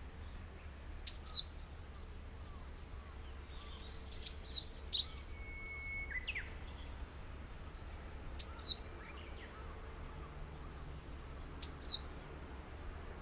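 Japanese tit calling: short, high, paired notes that fall in pitch, given in four bursts a few seconds apart.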